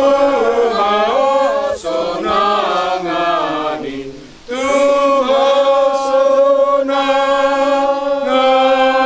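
A group of mourners singing a slow Batak-language hymn in unison, without instruments, in long held notes, with a short pause for breath about four seconds in.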